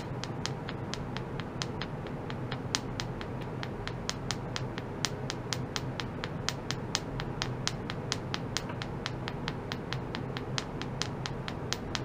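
Rapid light taps of a wooden stick on a stainless-steel ultrasonic probe, about four a second and somewhat uneven, over a steady low hum.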